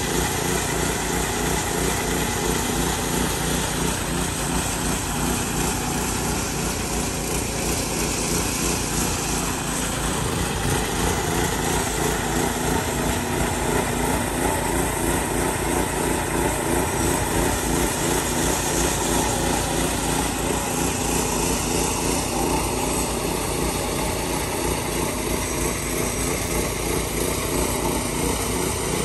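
Small engine of a walk-behind power trowel running steadily under load as the trowel smooths wet concrete.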